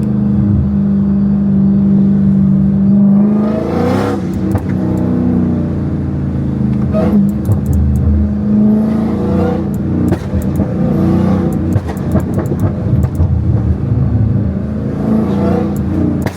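Catless supercharged 6.2-litre Hemi V8 of a Dodge Hellcat out on the street: it runs steadily for a few seconds, then revs up and falls back several times under acceleration, with sharp crackling exhaust pops as the revs drop.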